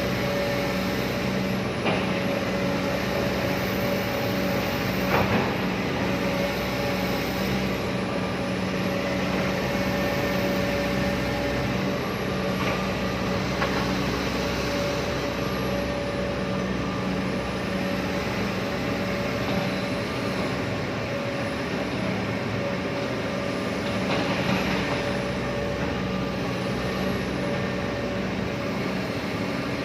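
Excavator's diesel engine running steadily, with a few short knocks and clunks from the machine at work.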